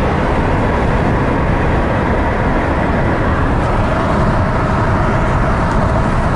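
1986 Mercedes W124 being driven, a steady, loud rumble of engine and road noise heard from inside the car.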